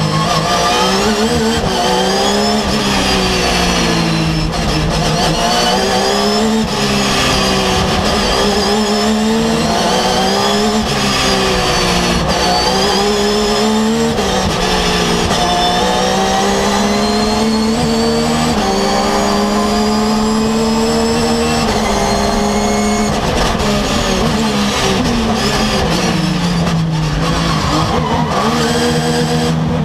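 Porsche GT3 R race car's flat-six engine at race pace, heard from inside the cockpit. Its pitch climbs through each gear, then drops back at upshifts and braking, over and over.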